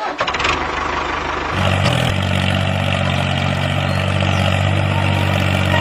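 DIY mini toy tractor running steadily as it pulls a loaded trolley, with a motor whir and a low engine-like hum that comes in about a second and a half in and holds steady.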